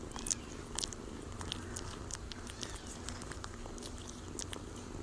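Kitten purring steadily, with scattered small clicks over the purr.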